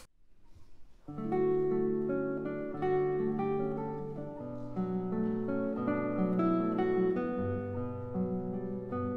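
Classical guitar music, with nylon-string guitar chords and plucked notes, coming in about a second in.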